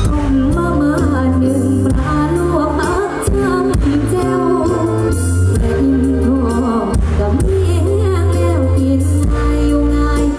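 A pop song with a singer over heavy bass, played loud through a large PA rig of 18-inch subwoofer cabinets and 15-inch horn-loaded cabinets.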